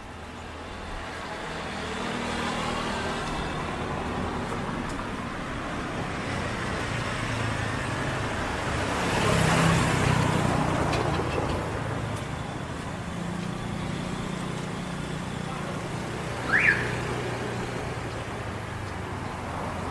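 Street traffic, with a motor vehicle passing close by that swells and is loudest about halfway through. Engines keep running underneath. About three-quarters of the way in there is one short, sharp high chirp.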